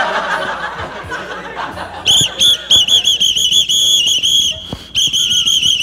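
A pea whistle blown in a rapid run of short, high-pitched toots, about four or five a second, starting about two seconds in, breaking off briefly and starting again near the end.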